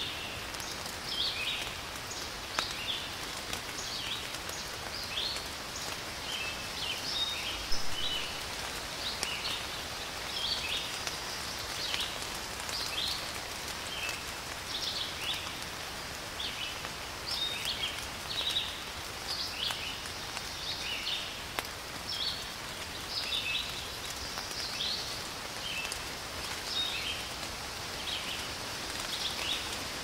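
Steady rain falling on leaves, with birds singing throughout in frequent short, high chirps and phrases. One sharper tap stands out about eight seconds in.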